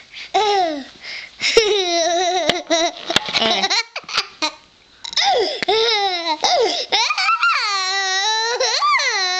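A young child laughing and squealing in high-pitched, drawn-out bursts, breaking off for about a second near the middle. A few sharp clicks sound in the first half.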